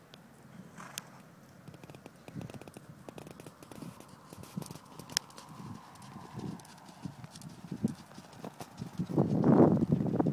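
Appaloosa gelding cantering on arena sand: soft, muffled hoof thuds in a loose rhythm, louder near the end.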